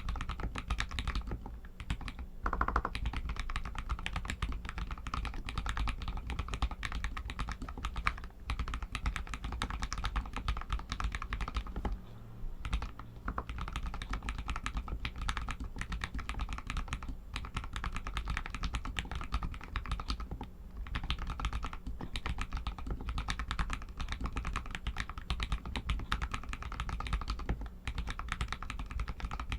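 Royal Kludge RK61 mechanical keyboard with Outemu Red linear switches being typed on continuously: a dense, steady stream of keystrokes, with a brief pause about twelve seconds in.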